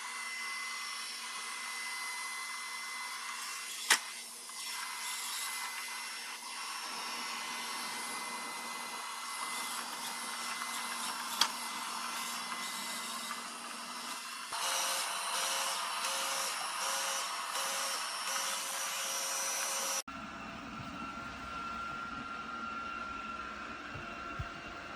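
Lubluelu L20 robot vacuum running, a steady whir of suction fan and brushes with a sharp click about four seconds in and another later on. Past the middle it gets louder with a pulsing tone, then near the end it switches abruptly to a different, lower hum.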